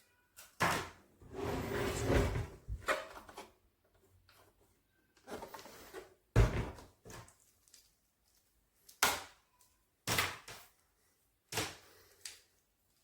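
A series of separate knocks and clunks from objects being handled, with a longer rustling, scraping stretch early on.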